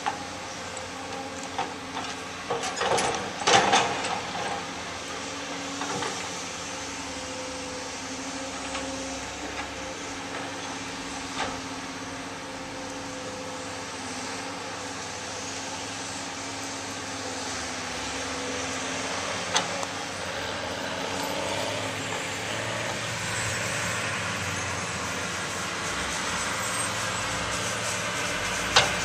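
Volvo hydraulic excavator and articulated dump truck running steadily at a dig site. A cluster of clanks and rattles about three seconds in, as the excavator bucket dumps dirt into the truck bed, then a few single knocks later on.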